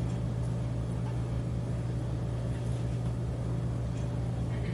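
Steady low electrical hum at one unchanging pitch, with fainter hum above and below it, and nothing else standing out.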